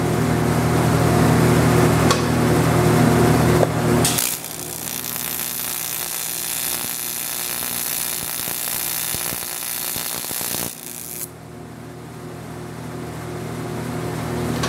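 TIG welding on an aluminum forging: a steady electrical hum from the welding setup, replaced about four seconds in by the even hiss of the welding arc, which cuts off about eleven seconds in, when the hum returns.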